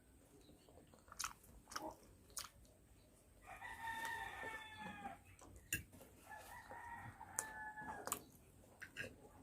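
A rooster crowing twice, each crow about a second and a half long, over close chewing and small eating clicks.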